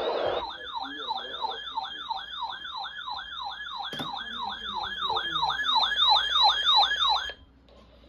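Weather alert radio sounding its siren-like alarm for a severe thunderstorm warning: a fast repeating falling sweep, a little over two a second. It cuts off abruptly about seven seconds in.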